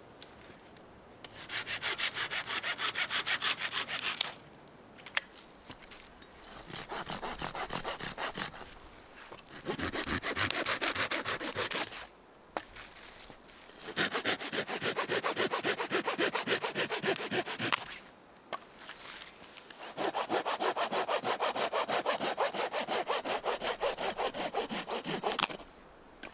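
Small hand saw cutting through a branch in quick back-and-forth strokes. The sawing comes in about five bursts, with short pauses between them.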